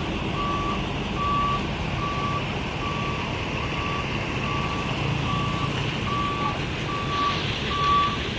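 A bus's reversing alarm beeping steadily, about three beeps every two seconds, over the low running of the bus engine.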